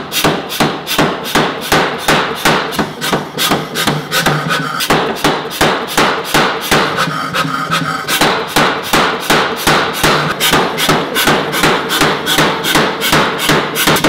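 Mechanical power hammer pounding a red-hot steel bar between its dies, a steady run of sharp metal blows at about three a second, drawing the bar out thinner.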